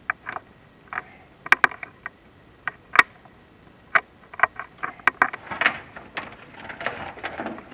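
Chimney inspection camera and its cable being lowered down a clay-tiled flue, with irregular sharp clicks and knocks as it bumps the walls and a brief scrape near the end.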